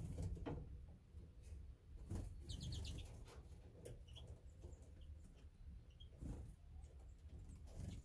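Small aviary finches chirping in short, high calls, with a quick run of repeated chirps a few seconds in and single short notes after. A low rumble and scattered soft clicks run underneath.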